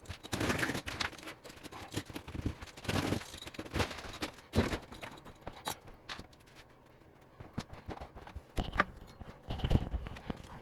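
Drywall being broken and pulled off a wall: irregular knocks, cracks and scraping, with a short quieter pause past the middle.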